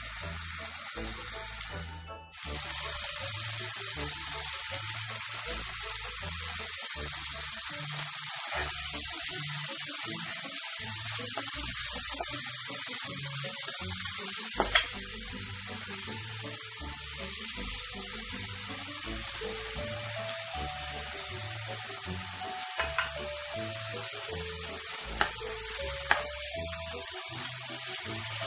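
Food sizzling steadily as it fries in hot oil in a pan, with a few sharp clicks of a utensil against the pan. Faint background music underneath.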